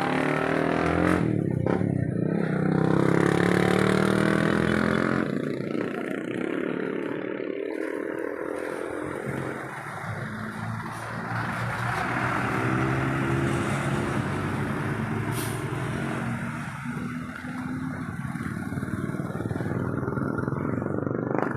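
A motor vehicle's engine running and accelerating, its pitch rising over the first few seconds and rising again about two-thirds of the way through, over steady road and traffic noise.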